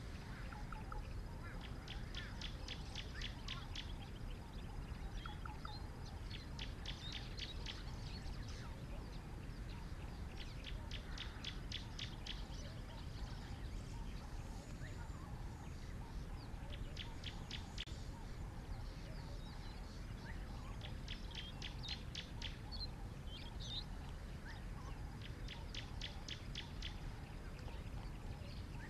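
A bird calling repeatedly. About six bursts of rapid high ticking notes, each lasting a second or two, come every few seconds, with a few short chirps between them. A steady low rumble runs underneath.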